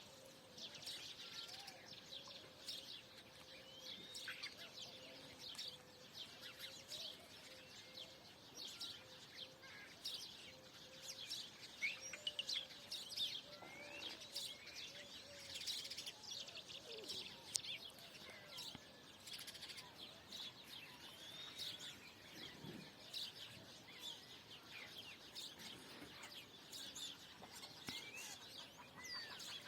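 Many small birds chirping and singing at once, short quick chirps and whistles overlapping throughout, with a faint steady hum under the first half.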